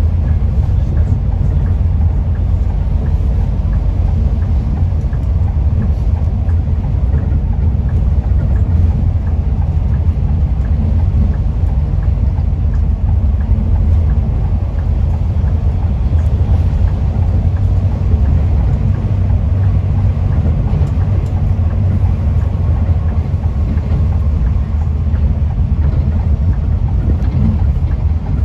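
Steady low rumble of a Scania K310IB coach's rear-mounted diesel engine and tyres, heard from inside the cabin while it cruises on the highway.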